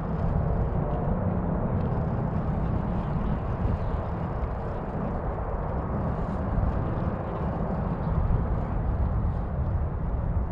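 Steady low outdoor rumble with a hiss above it, rising and falling slightly.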